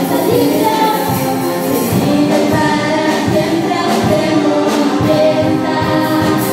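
Live Christian worship music: female vocalists singing a Spanish-language praise song into microphones, backed by electric guitar and keyboard through a PA.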